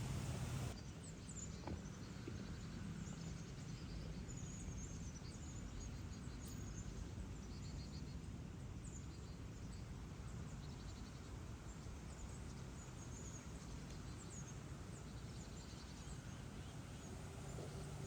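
Faint outdoor ambience: a steady low background hiss with scattered distant bird chirps and short, quick insect-like trills repeating every few seconds.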